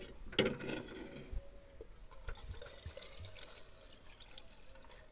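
Diesel trickling from a plastic can through a pipe into a tractor's fuel tank as it is topped up to the brim, with a sharp click about half a second in.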